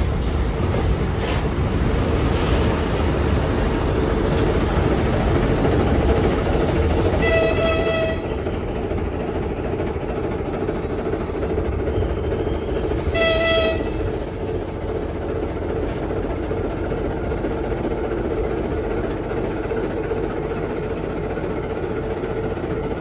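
TEM18DM diesel-electric shunting locomotive running close by with a string of freight wagons, its engine giving a steady rumble, with a few clacks of wheels over rail joints near the start. It sounds its horn twice, two short single-note blasts about seven and thirteen seconds in.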